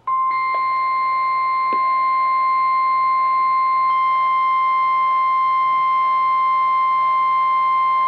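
NOAA Weather Radio 1050 Hz warning alarm tone sounding from a weather radio's speaker. It is one loud, steady tone that marks the start of a warning broadcast.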